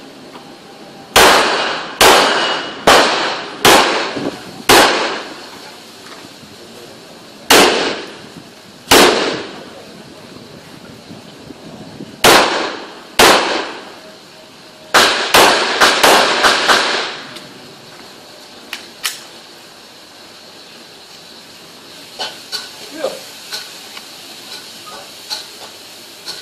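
Handgun shots fired in strings: six shots in the first few seconds, then two pairs, then a rapid burst of about five. A few faint clicks follow near the end.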